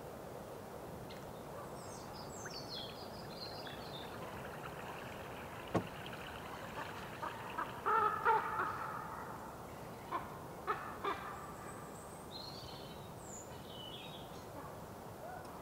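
Common ravens feeding at a carcass: a short two-part raven call about eight seconds in is the loudest sound, with a few sharp knocks around it. Small birds chirp high in the background near the start and again late on.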